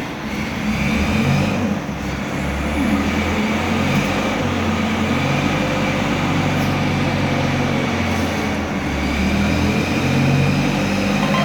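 Chicago Pneumatic PX 40 air compressor running steadily, a loud continuous machine hum whose low notes shift slightly in pitch.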